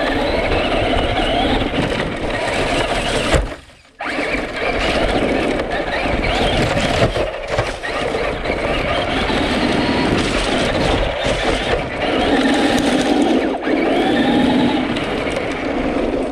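Traxxas Rustler 4x4 RC truck driving hard: the electric motor and gears whine up and down in pitch with the throttle, over the rush and crunch of the tyres on dirt and leaves. The sound cuts out briefly about three and a half seconds in, then picks up again.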